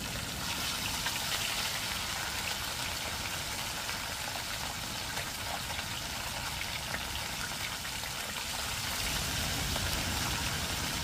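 Steady hiss of heavy hurricane rain, with a low rumble of wind beneath it, swelling slightly near the end.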